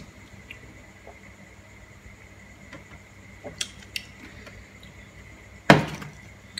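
Light clicks of boiled mussel shells being handled, then one sharp knock near the end as a glass mug is set down on the table.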